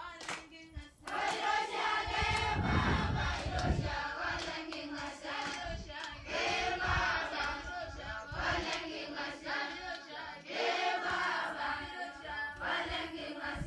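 A group of voices singing or chanting together in phrases, with a low rumble for a couple of seconds early on.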